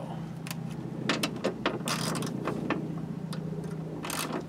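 Plastic vapor barrier sheet being peeled off the inner door panel, pulling free of its sticky sealant with a run of crackles and clicks and longer rustles about two seconds in and near the end, over a low steady hum.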